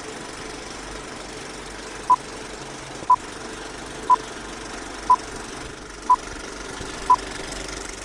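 Old film projector running with a steady whirring clatter and hiss. Over it come short, loud, high beeps once a second, six in a row from about two seconds in, marking a film-leader countdown.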